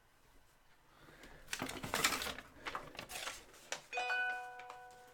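Rustling and scraping as trading cards and their packaging are handled. About four seconds in comes a single bright ding with several pitches, which rings on for about a second as it fades.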